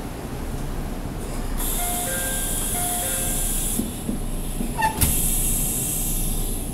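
JR Central 313 series electric train's pneumatic doors working at a station: a burst of compressed-air hiss with a few short tones in it, then a sharp thud about five seconds in, followed by another air hiss.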